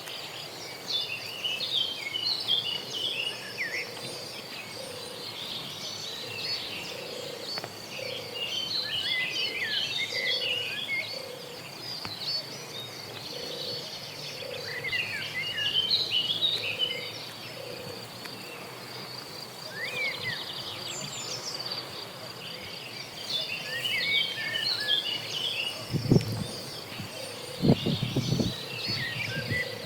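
Outdoor rural ambience: a steady high insect drone with bursts of bird chirps, and a low note repeated a little more than once a second through the middle. There are a few short low thumps near the end.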